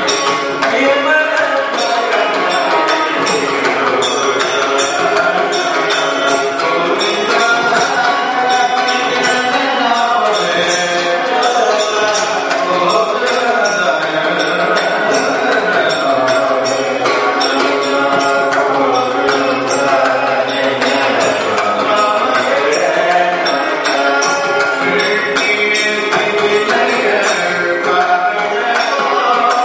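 Namasankeerthanam, South Indian devotional singing: a male lead voice sings, accompanied by a barrel drum and small hand cymbals clinking along with the beat.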